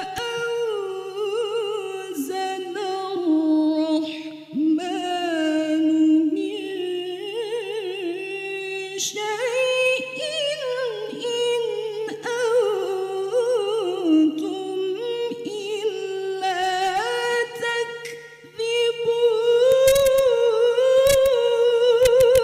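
A woman's solo voice reciting the Quran in melodic tilawah style into a microphone: long, ornamented held notes with a quavering vibrato that glide slowly up and down. Two brief breaks for breath, about four and a half seconds in and about eighteen and a half seconds in.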